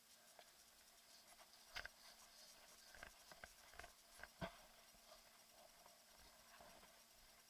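Near silence with a few faint, scattered clicks and taps, the loudest about four and a half seconds in.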